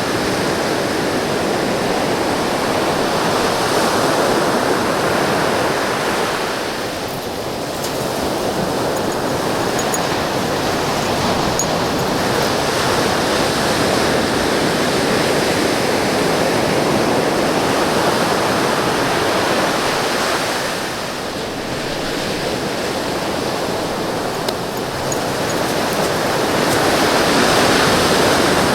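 Ocean surf breaking on a beach, a loud continuous wash of waves that swells and eases, dipping briefly about a quarter of the way in and again about three quarters in before building back up near the end.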